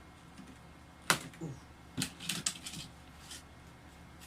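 Sharp clicks and knocks from opening and handling the dumbbell set's packaging: one loud click about a second in, then a quick run of clicks about a second later and a lighter one after that.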